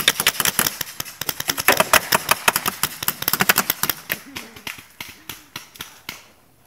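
Several paintball markers firing in rapid, irregular pops, many a second, thinning out after about four seconds and stopping near the end.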